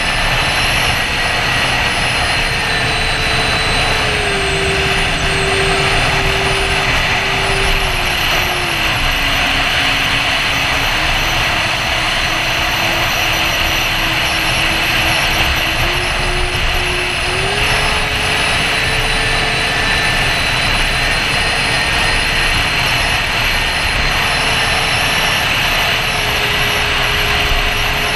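Electric ducted fans of a Freewing A-10 RC jet running in flight, a high whine over a loud rush of air. The fan pitch steps down from about four seconds in, sits lowest around ten seconds, and climbs back about seventeen seconds in as the throttle is eased and opened again.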